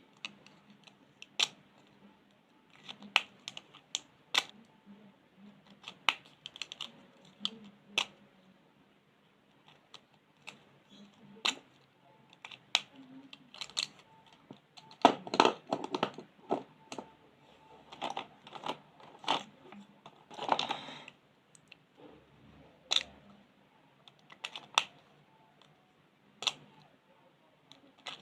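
Colouring a mandala with coloured pencils on paper: irregular sharp taps and clicks, with a denser run of short scratchy strokes about halfway through.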